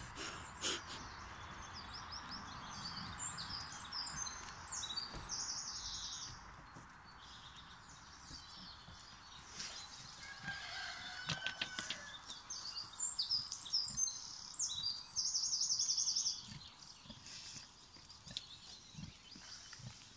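A small songbird sings twice, each song a run of quick falling notes that ends in a fast trill. The first song comes about a second in and the second, louder one about twelve seconds in.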